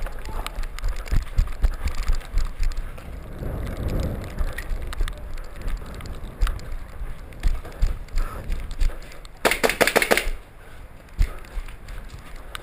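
A short burst of rapid airsoft gunfire about nine and a half seconds in, a quick run of sharp evenly spaced shots, amid scattered clicks and the low rumble of a body-worn camera being jostled.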